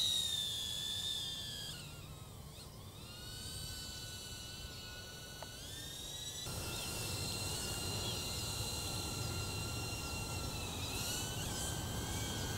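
DJI Avata FPV drone's ducted propellers whining in flight, a high multi-toned whine. The pitch sags two to three seconds in and climbs back as the motors change speed, and the sound shifts abruptly about six and a half seconds in.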